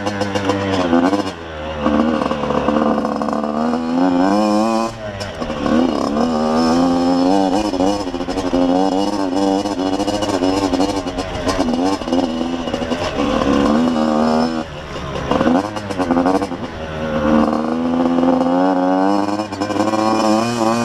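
Yamaha YZ85 dirt bike's two-stroke single-cylinder engine revving up and down as it is ridden hard along a rough track, pitch climbing on the throttle and dropping back several times, with sharp drops about 5 s, 14 s and 19 s in.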